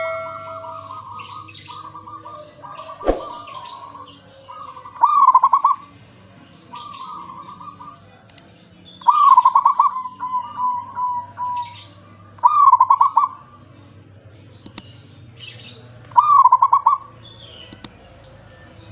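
Zebra dove (perkutut) cooing: repeated trilled, staccato coo phrases, with a loud bout about every three to four seconds. A sharp click about three seconds in.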